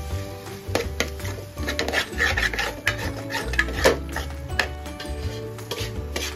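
A metal utensil scraping and clanking against a cooking pan in many irregular strokes, over steady background music.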